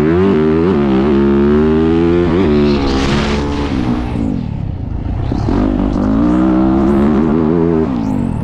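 Yamaha YZ450F four-stroke motocross engine heard up close on board, revving hard and dropping in pitch at each gearshift in the first few seconds. Midway it eases off the throttle, then pulls steadily again before backing off near the end.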